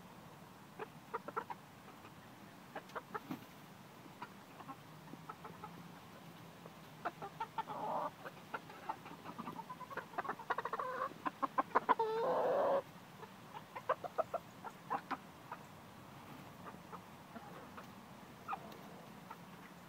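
Backyard flock of Polish and dark Brahma chickens clucking, with short calls scattered throughout. Around the middle the calls come thicker and louder in a quick run of clucks that peaks and then stops abruptly.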